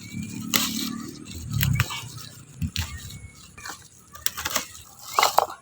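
Hands handling and breaking Brazilian spinach in food preparation: scattered snaps, rustles and sharp clicks, with a quick cluster of louder clicks near the end.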